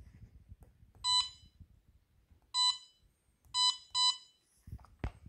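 Siemens HMI touch panel beeping as its on-screen buttons are pressed: four short, identical high beeps, the last two close together. A dull knock follows near the end.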